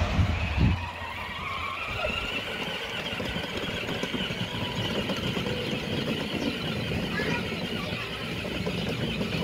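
Electric drive motors and plastic gearboxes of a child's battery-powered ride-on Ford Ranger toy truck, whining steadily as it drives across the grass. Two thumps come in the first second.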